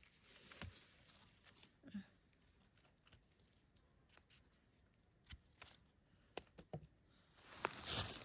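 Faint rustling and crackling of dry leaves and grass with scattered small snaps, growing into denser rustling near the end, as plants are handled or stepped through while foraging for mushrooms.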